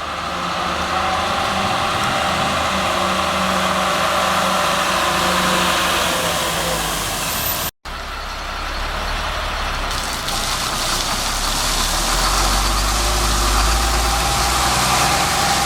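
A Caterpillar C7 six-cylinder turbo diesel in a Ford F750 truck running steadily. The sound drops out for a moment about eight seconds in, and the engine's low rumble grows heavier later on.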